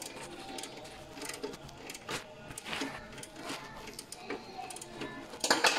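Irregular clicks and light metal knocks of a wrench working at the alternator while the new V-ribbed drive belt is tensioned, with a louder clatter near the end.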